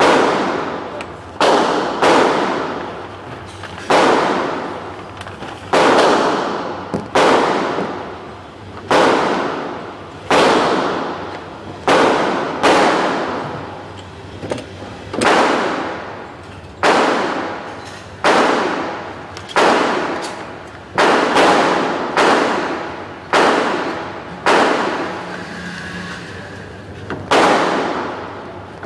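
Pistol shots at a shooting range: more than twenty sharp reports fired at an uneven pace, often a second or two apart, each trailing off in a roughly second-long echo.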